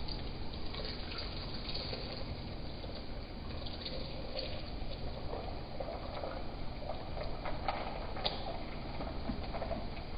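Carrot and orange juice poured in a steady stream from a jug into a tall glass, splashing as the glass fills.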